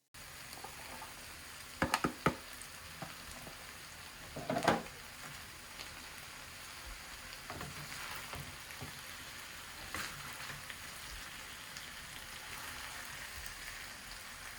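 Beef stir-fry with cabbage and broccoli sizzling steadily in a hot pan. A utensil clinks sharply two or three times about two seconds in, and stirs with a louder short clatter a couple of seconds later.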